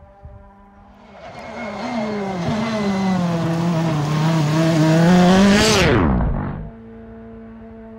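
Toyota Yaris WRC rally car's 1.6-litre turbocharged four-cylinder engine approaching under power, growing louder. It passes close by about six seconds in, its pitch dropping steeply as it goes away. A faint steady hum can be heard before and after.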